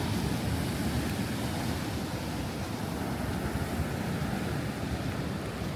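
Strong wind buffeting the microphone with a steady low rumble, over the continuous wash of rough surf at high tide.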